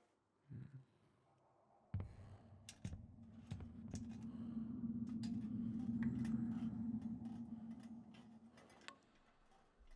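Film sound-design drone: a low steady tone starts with a sharp hit about two seconds in, swells to a peak midway, and fades out before the end, with scattered sharp clicks and ticks over it.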